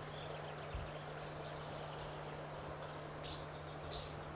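Faint outdoor ambience with a steady low hum and soft hiss, a soft low thump under a second in, and two short high bird chirps near the end, less than a second apart.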